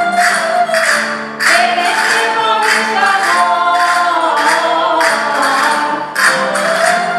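A rondalla folk string band of plucked lutes and guitars plays a traditional Valencian dance tune with singing. Sharp percussive strikes keep a beat roughly every half second.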